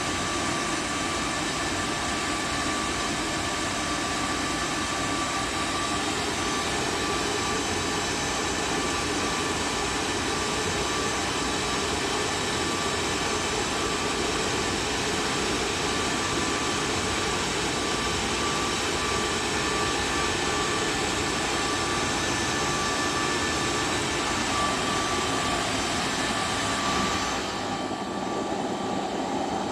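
Tunnel car wash machine's high-powered air-drying blowers running steadily: a loud rushing of air with several steady whines. Near the end the higher hiss cuts off abruptly and a lower rush remains.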